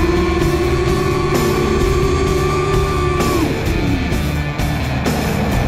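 Rock music with electric guitar, loud and steady. Over it a steady high whine holds, then slides down in pitch and fades about three seconds in.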